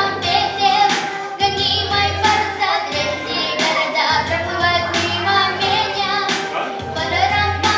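A girl singing a melody with vibrato over instrumental accompaniment with a regular beat and bass.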